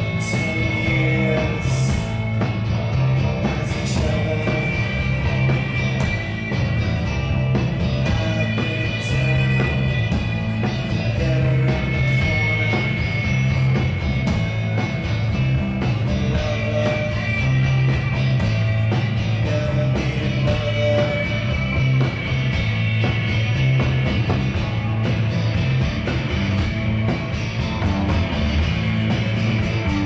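A live rock band playing: electric guitars, bass and a drum kit, with cymbal hits in the first few seconds and some singing.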